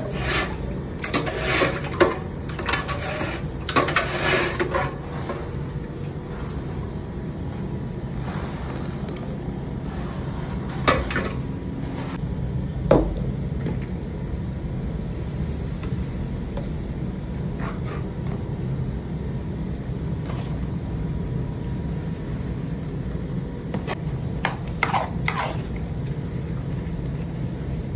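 Wooden paddle scraping and knocking against a large aluminium pot of sugar syrup, a cluster of clatter in the first few seconds. Later come a few sharp knocks, including a metal ladle on an iron pan of sugar, over a steady low rumble.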